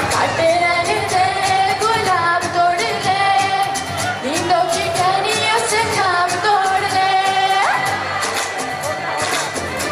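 A woman singing a song into a stage microphone over accompanying music with a steady beat. She holds long notes and slides between pitches.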